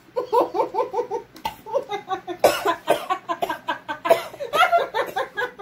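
Women laughing hard in quick, repeated bursts.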